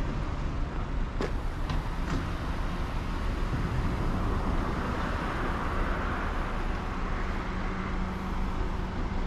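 Road traffic: cars running and moving around a parking area, with a steady low engine hum coming in about six seconds in. A few light clicks about a second in.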